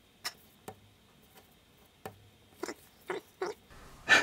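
A scattered handful of light clicks and taps as small ratchet parts, the detent spring and ball, are handled and set down on a work mat, with a few short pitched blips about two-thirds of the way in.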